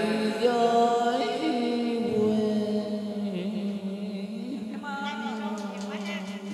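A man singing a slow Vietnamese cải lương line into a microphone, drawing out long, wavering held notes that slide between pitches.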